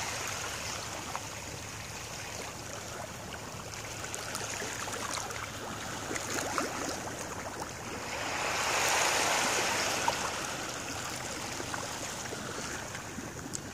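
Small waves lapping at the water's edge: a steady watery wash that swells for about two seconds past the middle.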